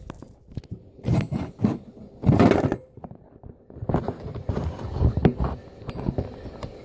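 A phone being handled and propped up among things on a gas stovetop, with a series of short knocks, clunks and scrapes; the loudest is a scrape about two and a half seconds in.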